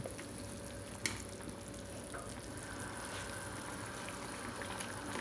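Pot of chicken broth simmering on the stove, a soft steady bubbling, with a single light knock about a second in.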